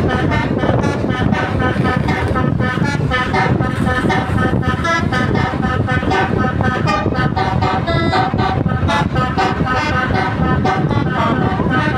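A bus's multi-tone telolet Basuri horn playing a fast tune of short pitched toots, one note after another, over a low rumble.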